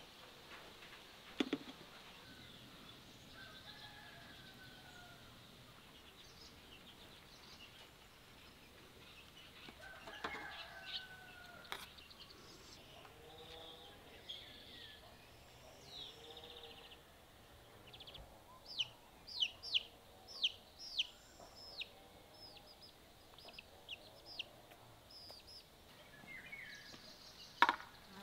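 Faint rural yard sounds: hens clucking now and then and small birds chirping, with a quick run of high chirps about two-thirds of the way through. A few sharp knocks, one near the start and louder ones near the end.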